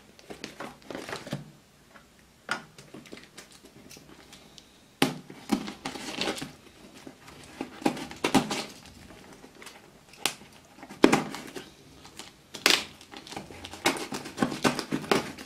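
Cardboard shipping box being cut open: a small blade slitting the packing tape and the cardboard being handled, giving irregular scrapes, rustles and taps with sharp clicks. Sparse for the first few seconds, busier from about five seconds in.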